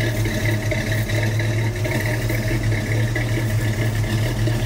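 1949 Chevrolet 3100 pickup's first-generation small-block V8 running at a steady, even note.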